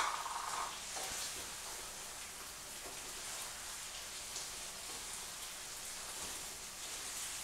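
Spaghetti in tomato sauce sizzling in a frying pan over a high gas flame: a steady hiss, with a few light knocks from stirring.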